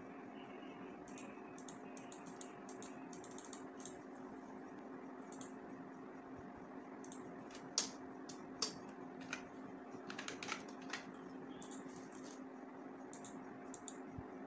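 Computer keyboard keys pressed a few at a time, sharp scattered clicks clustering between about seven and eleven seconds in, over a steady low hum.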